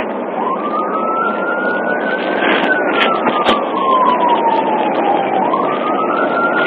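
Police siren wailing, heard from inside a moving police car over steady road noise. Its pitch rises, falls slowly over a few seconds, and rises again about five seconds in.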